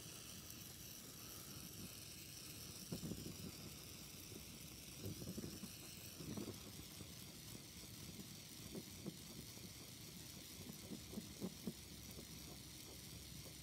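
Faint steady hiss of an oxy-acetylene torch burning with a neutral flame, heating a sterling silver piece up to soldering temperature. A few faint soft low sounds come and go.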